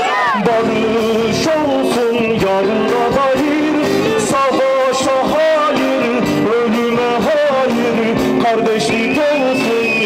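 Live band music with a man singing a Turkish folk-rock song into a microphone, electric guitar in the band.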